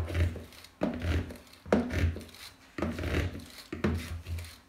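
A hand-held spiral whisk worked up and down through thick pancake batter in a plastic bowl, folding beaten egg whites in. Strokes come about once a second, each a dull thud with a brief swish.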